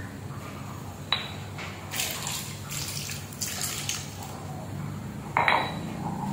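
Stone pestle knocking against a stone mortar, then liquid poured from the mortar and splashing onto raw cassava sticks in a plastic tub. A second, louder knock of pestle on mortar comes near the end.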